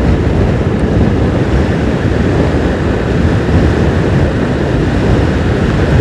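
Steady, loud wind buffeting the microphone of a motorcycle at road speed, with the bike's engine and tyre noise underneath.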